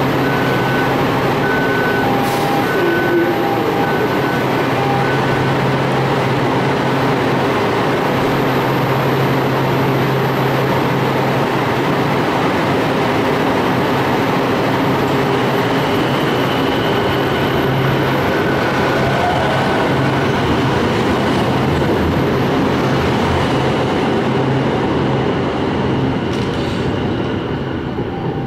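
CAF Type-9 light rail train standing at a platform, its onboard equipment humming steadily. A repeated two-pitch beeping chime sounds for about the first five seconds as the doors close.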